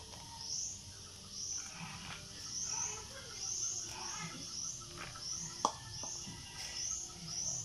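High chirps from a small animal, repeated roughly once a second, over soft scuffing of hands in soil. A single sharp knock sounds about five and a half seconds in.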